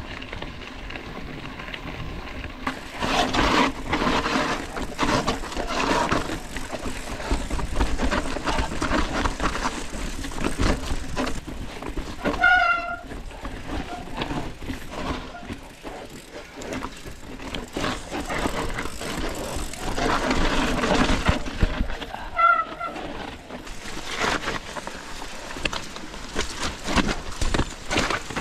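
Mountain bike ridden over rough, rocky trail: a constant rattle of the frame and chain, with tyres knocking over stones. Twice, about halfway through and again near the end, a short wavering squeal cuts through.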